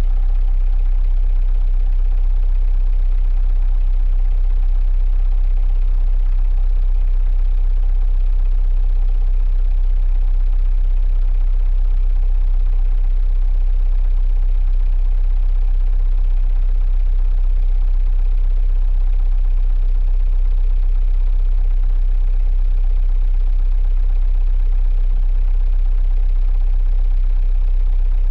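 A 45 ft sailboat's inboard diesel engine running at a steady speed, heard from inside the rear cabin: a deep, even rumble with a steady hum and no change in speed.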